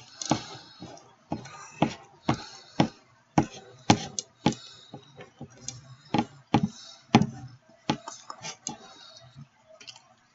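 Irregular sharp clicks and knocks of eating at close range, a plate and food being handled near the microphone.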